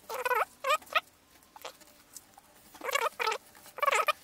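Short, high squeaks that waver in pitch as fingers press and slide along a fresh fold in a sheet of A4 paper. There are three quick squeaks at the start, then a pause, then three more near the end.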